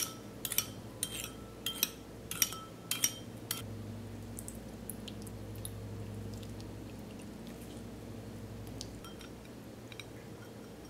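A metal spoon clinking against a ceramic bowl about seven times in quick succession as spoonfuls of fish sauce are added to a dressing. After that come only a few faint small ticks.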